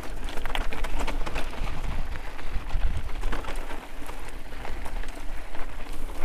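Mountain bike ridden downhill over a rocky, gravelly trail: tyres crunching on loose stones and the bike rattling in a dense, irregular patter of clicks, over a steady low rumble of wind on the microphone.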